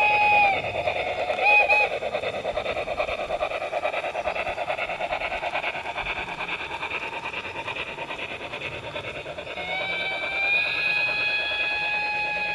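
Model steam locomotive's electronic sound module on a garden railway. A long whistle ends about half a second in, then two short toots. Fast, even steam chuffing follows, and a second long whistle begins a couple of seconds before the end.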